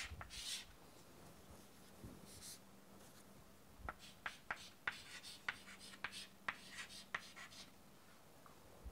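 Chalk writing on a chalkboard, faint: a soft scrape at the start, then a run of short taps and strokes, about three a second, from about four seconds in until near the end.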